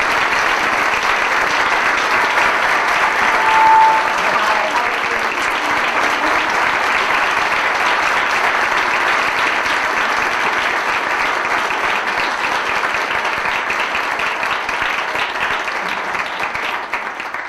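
Audience applauding steadily, dying away near the end. A brief steady tone sounds about four seconds in.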